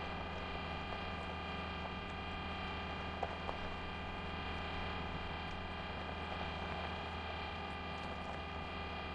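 A steady droning hum of several held tones over a low drone and light hiss, with a couple of faint ticks about three seconds in.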